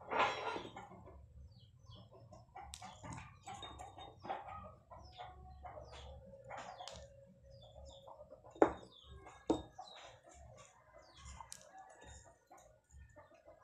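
Chickens clucking in the background, with a louder call right at the start. Two sharp clicks about a second apart, just past the middle, are the loudest sounds.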